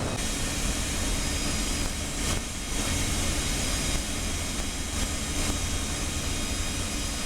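Terry steam turbines driving the ship's induced draft fans by long belts, running steadily: a dense machinery noise with a faint thin whine held on top.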